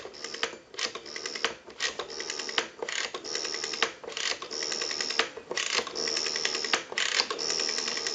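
Rotary dial of a Stromberg Carlson 1543 desk telephone being dialed digit after digit, about seven times. Each pull is followed by the spring-driven return, a whir with pulse clicks, and each return runs a little longer than the one before as the digits get higher. The dial has been cleaned, oiled and adjusted for a smooth return.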